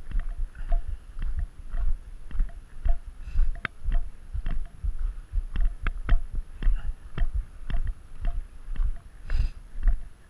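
Footsteps on a gravel road at a steady walking pace, about two steps a second. Each step carries a low thump from the walker's body-worn camera.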